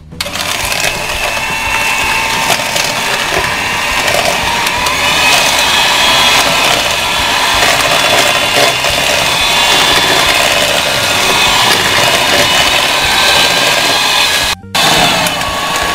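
Electric hand mixer running steadily, its twin beaters whisking eggs and sugar in a plastic bowl, the egg-beating stage of a sponge-type cake batter. The sound breaks off for a moment near the end, then carries on.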